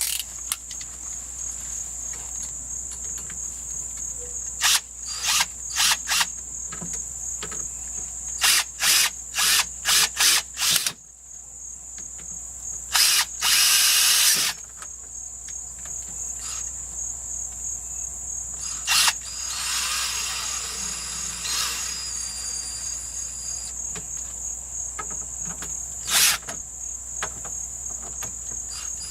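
Cordless power drill run in a string of short trigger bursts, then held for a longer run of about a second and a half, with a few more short bursts later. Crickets chirp steadily throughout.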